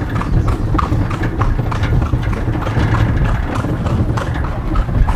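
Carriage horse's hooves clip-clopping on a paved road in a steady, even rhythm.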